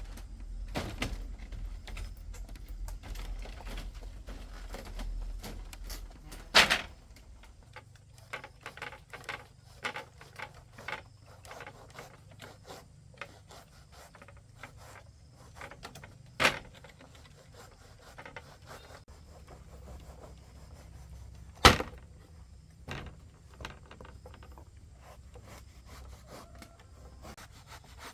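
Scattered clicks and knocks with some rubbing, as of hands working with hard objects; three single knocks stand out well above the rest. A low hum underlies the first few seconds and then drops away.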